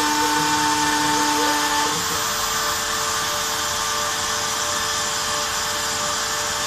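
Rotary tool spindle of a homemade CNC machine spinning a V-bit and engraving particleboard, with a vacuum hose drawing off the dust: a steady whine over an even hiss. The machine's tones shift about two seconds in as the cut moves on.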